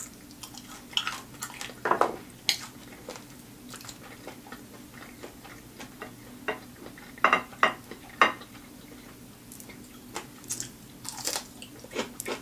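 Close-miked eating: irregular wet chewing clicks and lip smacks, with a few louder sharp smacks about two seconds in, around seven to eight seconds and near the end. A faint steady hum sits underneath.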